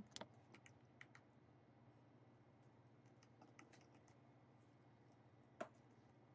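Near silence over a faint steady hum, broken by a few light clicks in the first second and one sharper click at about five and a half seconds, from small hand tools and parts being handled during an iPad Pro charging-dock replacement.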